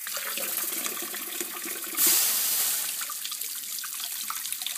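Kitchen tap running full onto a metal cup of hot bismuth in a stainless steel sink, quenching the freshly cast metal. The water starts just before and runs steadily, with a louder hissing surge about two seconds in.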